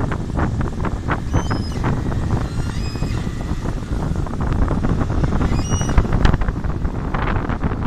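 Doosan wheel loader's diesel engine running hard as the machine pushes and spreads a pile of wood chips, with wind buffeting the microphone.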